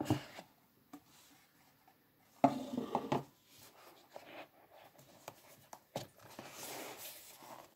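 Cardboard smartphone box being opened by hand: a brief louder rub about two and a half seconds in as the lid comes off, then light rubbing and small taps as the inner box is handled.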